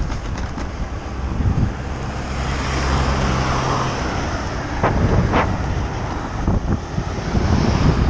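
Wind rushing over a cyclist's camera microphone as a flatbed tipper van overtakes close alongside. The van's engine hum is heard for about two seconds as it draws level. Two short sharp sounds come about five seconds in.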